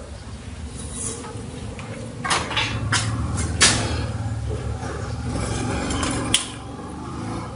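Computer hardware being handled: plastic and metal parts knocking and clattering in a few sharp strikes, the loudest about three and a half seconds in, over a steady low hum.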